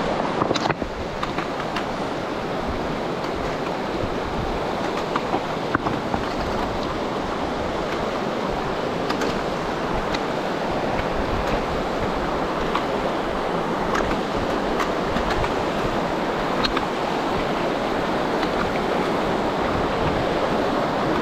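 Mountain river rushing steadily over rocks, with a few faint sharp clicks scattered through it.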